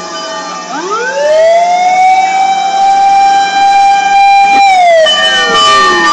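Fire engine siren wailing as the truck approaches. It rises in pitch about a second in, holds steady for several seconds and gets louder, then falls in pitch near the end.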